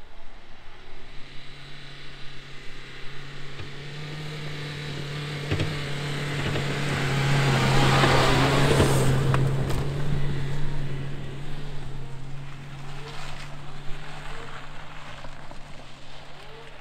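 Dacia Duster 1.5 dCi four-cylinder diesel driven hard uphill at steady revs, with tyre noise on the muddy, snowy track. It grows louder as the car comes up, passes close by about eight seconds in, then fades as it climbs away.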